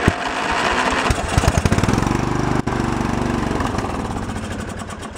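15 hp Briggs & Stratton engine on a riding mower being cranked on its electric starter with the choke on, turning over in a steady rhythm without catching, with a brief break about halfway. It isn't starting: it isn't getting fuel, or the fuel or the carburettor is bad.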